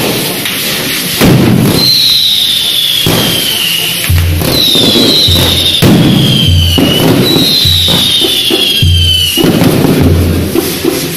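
Fireworks tower (castillo) burning: spinning firework wheels hiss and crackle, and whistling fireworks give about four falling whistles, each one to two seconds long. Band music with a steady low drum beat plays underneath, the beat coming about every 0.8 s from about four seconds in.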